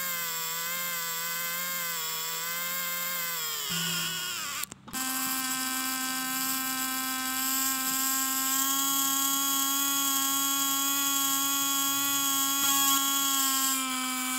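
Small DC motor and gearbox whining as it winds a string to lift a brick. At first the pitch wavers under the load, then it drops away and stops about four seconds in. After a brief break the motor starts again with a steady whine at a higher pitch.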